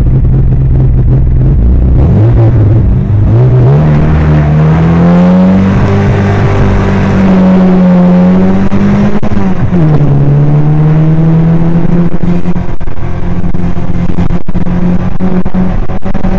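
A 1968 MGB's 1.8-litre four-cylinder engine, heard from inside the open cockpit on a hillclimb run. It runs steadily for about two seconds, then rises in pitch as the car pulls away and accelerates hard. About nine to ten seconds in the note drops sharply at a gear change, then climbs again and holds under load up the hill.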